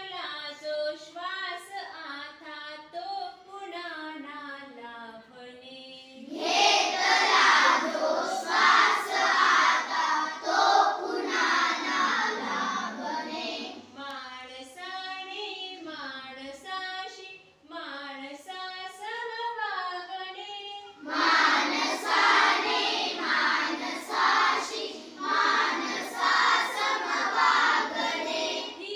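A class of schoolchildren singing together in unison. Quieter lines sung by fewer voices alternate with loud stretches where the whole class sings, twice over.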